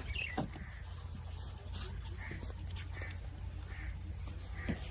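A bird giving short, repeated calls, about five of them spaced roughly a second apart.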